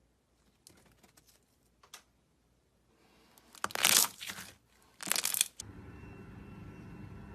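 Slime being handled, with a few faint clicks and then two loud crackling, tearing stretches about four and five seconds in. A steady low hum starts just after the second stretch.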